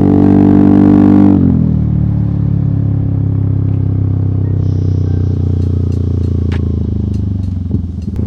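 Yamaha XMAX scooter's single-cylinder engine running loud under throttle, then the throttle closes about a second in and it drops to a lower, steady drone as the scooter rolls on.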